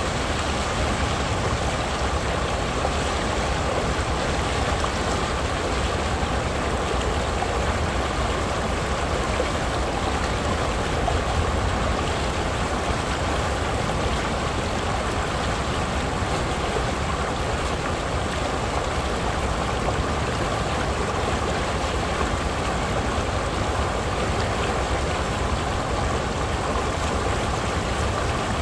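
Shallow river water spilling over a low rock ledge and churning white, a steady rushing and splashing with no let-up.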